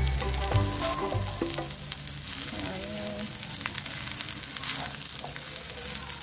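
Fried rice sizzling in a nonstick pan while a slotted spatula stirs and scrapes through it, with scattered clicks of the spatula on the pan. Background music plays over the first couple of seconds, then fades.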